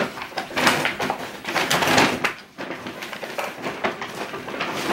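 Irregular rustling and clattering as items are rummaged through and pulled out, in short noisy bursts.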